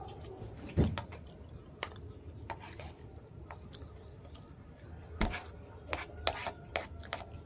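Eating sounds: a metal spoon clinking and scraping against a bowl of goat curry and rice, and the mouth taking and chewing the spoonfuls. Scattered sharp clicks, with two louder knocks, one about a second in and one just past five seconds.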